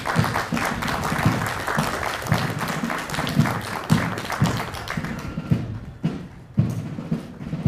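Military marching band playing a march, its bass drum beating about twice a second. Over the first five seconds a dense clatter of applause from spectators runs over the band, then fades out.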